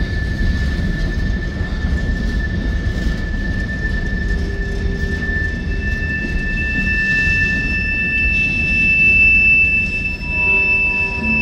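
CSX freight train's steel wheels rolling over the rails with a steady low rumble, with a high, steady squeal throughout and a second, higher and louder squeal joining about six seconds in.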